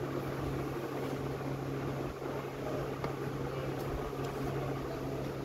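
Steady low mechanical hum with a hiss, with a few faint clicks.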